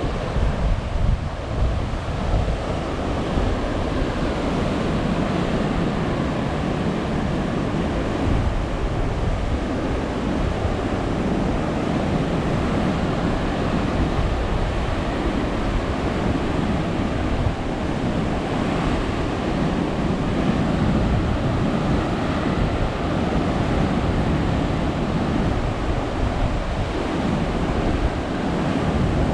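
Rough sea after a typhoon, waves surging and breaking against sea cliffs in a steady roar, with wind buffeting the microphone.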